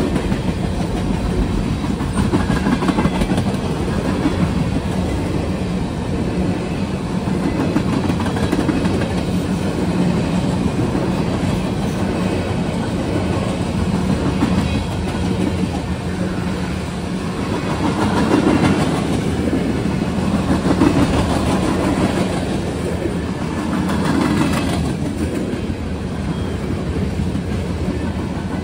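Freight cars of a passing mixed freight train, covered hoppers and tank cars, rolling by at speed: a steady rumble and rattle of steel wheels on the rails, swelling in loudness several times as the cars go past.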